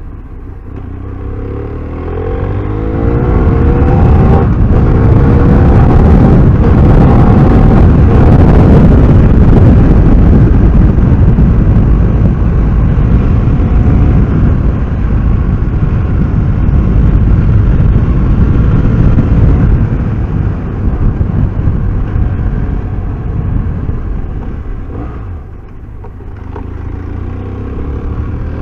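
BMW F800R's parallel-twin engine climbing in pitch as the bike accelerates. For most of the time it is buried under a loud, steady rush of wind at speed. Near the end the rush drops and the engine is heard pulling up through the revs again.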